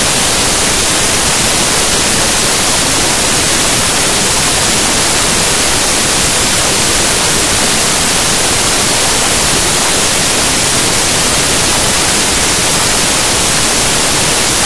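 Loud, steady hiss of static (white noise) filling the soundtrack in place of the programme sound: an audio dropout in the broadcast recording that masks the interview.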